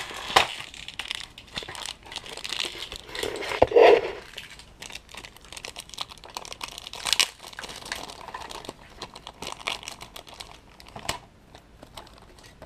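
Clear plastic packet crinkling and rustling as it is handled and opened to take out a small paper passport, with scattered clicks and a louder dull knock about four seconds in.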